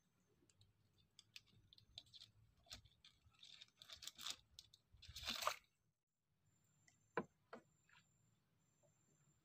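Faint crackling, clicking and rustling of hands unhooking a caught giant freshwater prawn and putting it into a mesh keep net. The loudest rustle comes about five seconds in, followed by a sharp click about two seconds later.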